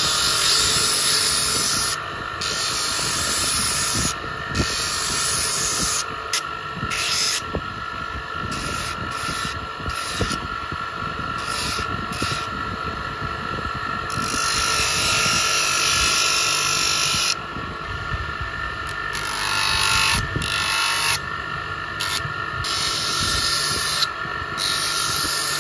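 Bench electric motor spinning a sanding drum with a steady whine, while a carved wooden spoon is pressed against the abrasive sleeve again and again. Each contact is a loud sanding hiss lasting one to three seconds, the longest about midway.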